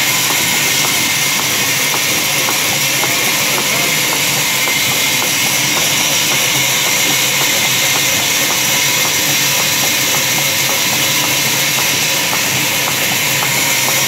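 Large sawmill log band saw running, a loud, steady hiss with faint ringing tones and a patter of fine ticks.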